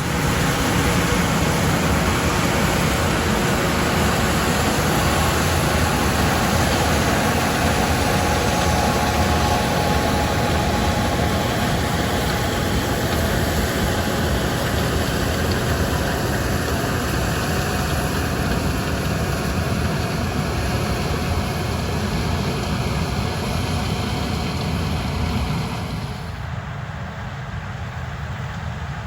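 Heavy harvest machinery running steadily, a loud, even mechanical noise that starts abruptly and drops lower about 26 seconds in.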